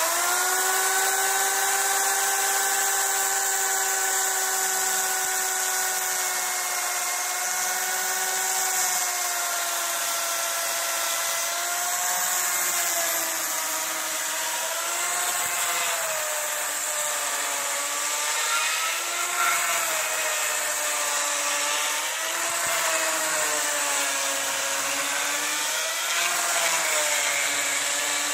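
An electric power tool's motor starts and runs without a break. Its pitch holds steady at first, then from about ten seconds in dips and recovers again and again as the tool is pressed into the work.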